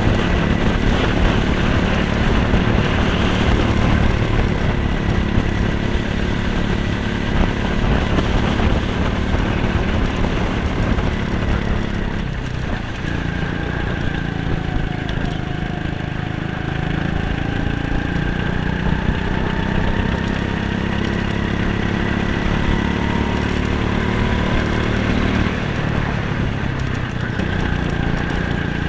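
Go-kart engines running on the track without a break, their pitch rising and falling as the karts speed up and slow through the corners.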